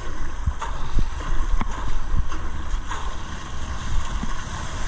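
Sea water washing and splashing around a kayak at sea, with wind buffeting the microphone as a heavy low rumble. A few short, sharp splashes stand out, about a second apart early on.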